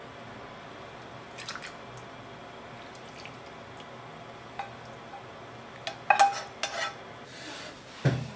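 Tableware being handled and set down: scattered light clicks, then a cluster of louder clinks with a short ring about six seconds in, and a dull thump near the end.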